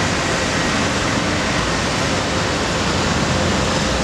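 Steady wash of street traffic and engine noise, with a few faint steady high tones running through it.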